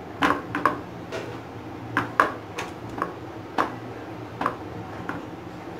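Chicken drumstick being pressed and turned by hand in a dry flour coating on a ceramic plate, with a scattering of light, irregular clicks and taps against the plate. A low steady hum sits underneath.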